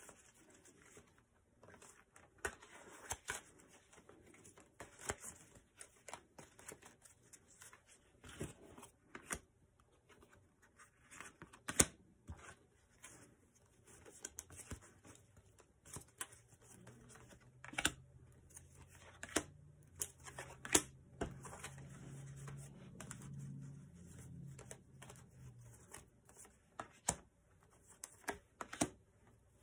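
Oracle cards being handled and laid out on a table: scattered soft slaps, slides and clicks of card stock. A faint low hum comes and goes in the second half.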